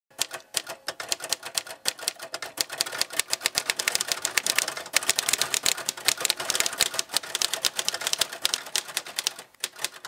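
Vintage Royal typewriter being typed on, its keys and typebars striking in a rapid run of sharp clicks. The clicks start sparse and pick up speed, then stop just before the end.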